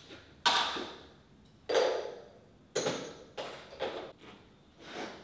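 A series of six sharp knocks and clangs, some ringing like struck metal, each dying away in the echo of a steel-walled shed; the first, about half a second in, is the loudest.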